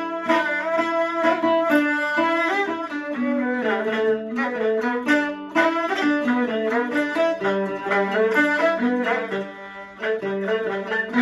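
Peking opera accompaniment led by bowed string instruments, playing an instrumental passage of moving notes between sung lines, with a short dip in level near the end.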